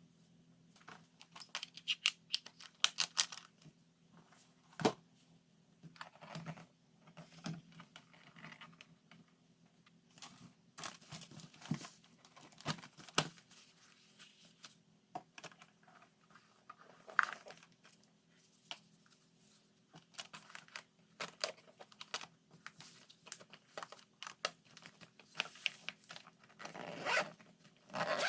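Hands packing a lunchbox: wrapping and packaging rustling and crinkling, with short tearing sounds and scattered light clicks and knocks of containers. A faint steady hum runs underneath.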